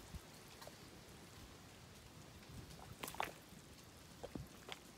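A few faint, sharp pops and clicks over quiet outdoor ambience, with a small cluster about three seconds in and two more near the end.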